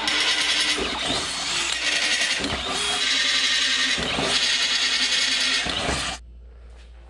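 Cordless drill boring a 1/4 inch hole through a steel hand-truck bracket, the bit grinding into the metal in a loud, harsh whir with a couple of brief dips. It cuts off suddenly about six seconds in.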